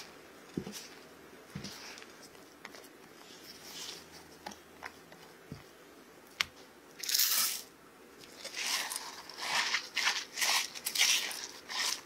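Silicone spatula stirring and scraping a thick batter in a glass bowl: a few soft taps at first, then from about seven seconds in a run of rough scraping strokes, the loudest sound here.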